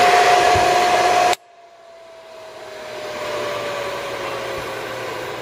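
Darex V390 drill sharpener's electric motor running with a steady whine and rush, cut off abruptly about a second in; afterwards its whine comes back faintly and slowly falls in pitch as the motor spins down.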